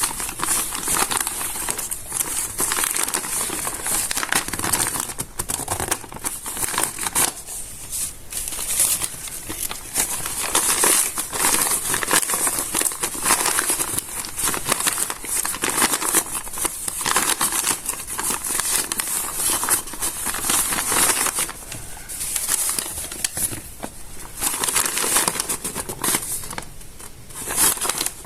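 Stiff, water-damaged notebook pages being handled and smoothed, giving a dense, continuous crisp crinkling and crackling, with short lulls now and then.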